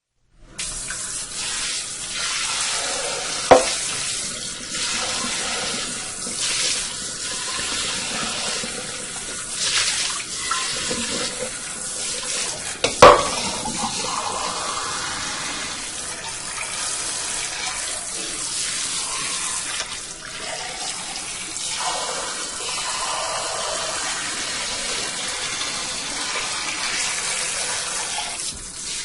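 Kitchen sink water spray rinsing dishes: a steady hiss of water that swells and thins as the spray moves. Two sharp knocks come about three and a half seconds in and again around thirteen seconds, the second the loudest.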